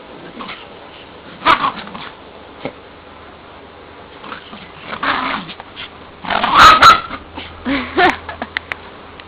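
Two dogs playing and vocalizing in several short outbursts, the loudest about two-thirds of the way through, with a few sharp clicks near the end.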